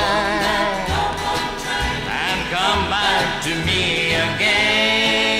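Country song recording: a male vocal holding long notes over guitars, with a bass thumping out a steady beat about once a second.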